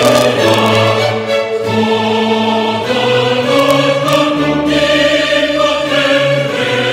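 Choral music with orchestra: voices and instruments holding slow, sustained chords that change every second or two.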